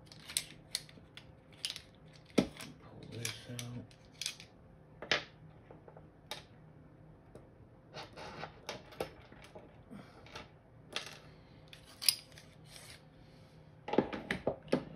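Small metal and plastic parts of a 5.4 Hi-Capa airsoft gas blowback pistol clicking and clacking as they are handled and fitted back together, in irregular sharp clicks with a quick run of them near the end.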